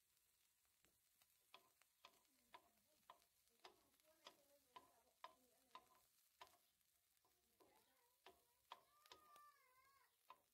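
Cooking utensil clicking and scraping against a non-stick frying pan as dry fish and chillies are turned while dry-roasting: a run of sharp clicks, about two a second.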